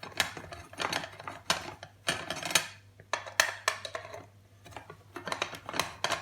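Irregular metallic clinks, taps and short scrapes: small screws and a screwdriver being worked against a cast aluminium case while a circuit board is unscrewed from it.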